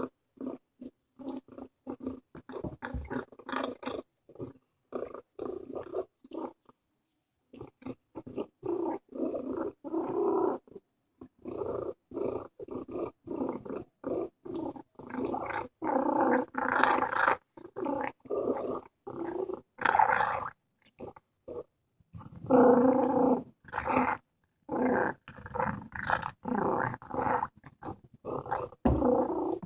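Domestic cat growling in a long run of short, rough bursts while eating a squirrel it has caught.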